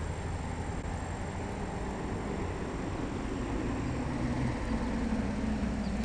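Steady low rumble of road traffic, growing a little louder near the end.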